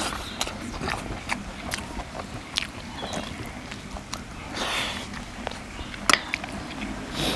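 A person chewing a mouthful of rice and curry eaten by hand, with irregular sharp mouth clicks and smacks and a longer noisy crunch about four and a half seconds in.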